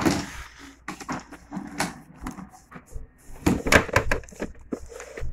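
Irregular plastic knocks and clatters of a toy kitchen being handled, its oven door and parts bumped and moved, with the loudest cluster about three and a half seconds in.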